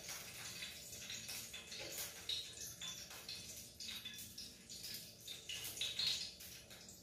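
A spatula scraping and tapping against a non-stick frying pan in a run of short, irregular strokes.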